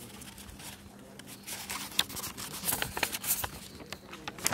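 A sheet of paper being handled close to the microphone, rustling and crackling in irregular sharp clicks. The crackling grows busier from about a second and a half in.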